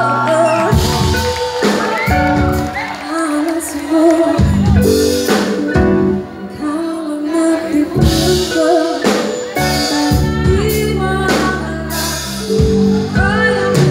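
Live band playing with a woman singing lead, backed by keyboard, electric guitar, bass guitar and drums. Drum and cymbal hits land at irregular intervals.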